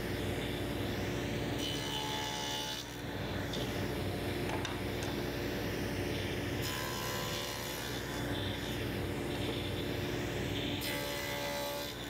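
Table saw running with a dado blade stack, cutting tenon cheeks in a board end over several passes, the motor's steady hum under the cutting noise.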